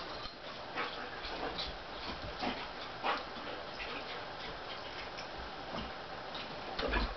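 Two dogs play-wrestling: soft dog noises and scattered small clicks from mouthing and paws, with a heavier thump near the end.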